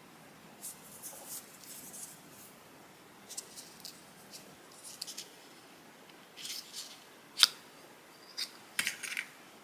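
Packaging of an Apple Watch being handled close up: short crisp rustles and crinkles in small clusters, with one sharp click about seven and a half seconds in and a few more clicks near the end.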